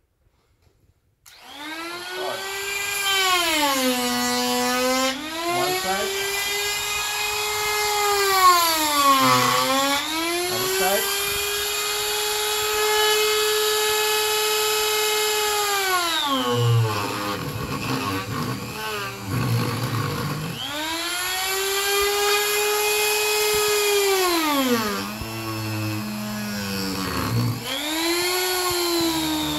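Electric die grinder whining at speed while its homemade eye-cutting burr, a hollowed burr with small teeth cut around its rim, carves into wood. The motor starts about a second in. Its pitch sags each time the bit is pressed into the wood and climbs back when the pressure eases, several times over.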